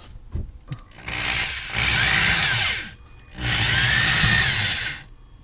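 Corded electric drill spinning a hole saw into the RV's ceiling, cutting in two bursts of about two seconds and a second and a half, with a short pause between them.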